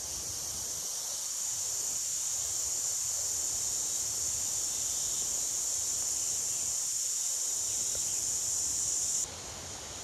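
Forest insect chorus: a steady, high-pitched shrill that cuts off suddenly near the end.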